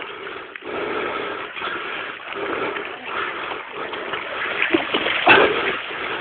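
Dog scooter being pulled by running huskies along a muddy trail: a steady rolling noise of the wheels and paws through mud, swelling and easing, a little louder about five seconds in.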